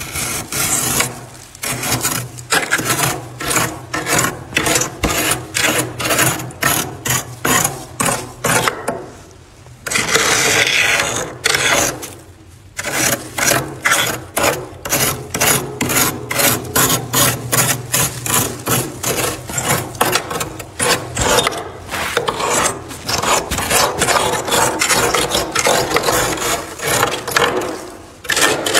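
Thick freezer frost being scraped off the walls in quick repeated strokes, a rough crunching rasp at about two to three strokes a second. About ten seconds in there is one longer unbroken scrape, then a short pause.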